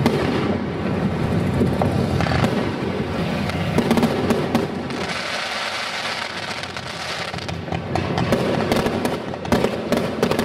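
Aerial fireworks bursting overhead: a continuous din of bangs and crackling. In the last few seconds it turns into a quick run of sharp cracks and pops.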